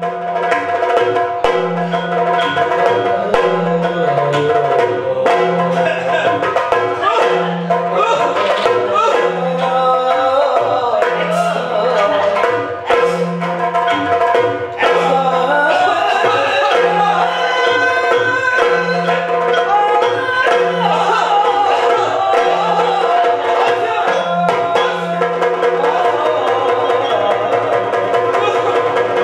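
Yakshagana accompaniment music: a steady drone under a wavering melody line, with a low drum beating at about two strokes a second. Near the end the drum beat stops while the drone and melody carry on.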